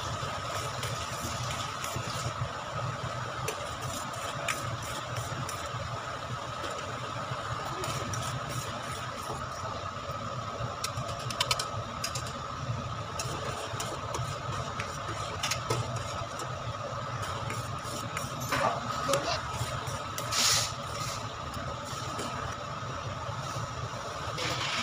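Sugar syrup bubbling in a steel kadai, with a steel spoon clinking and scraping against the pan now and then, over a steady background hum. The clinks come in small clusters, the loudest about two-thirds of the way in.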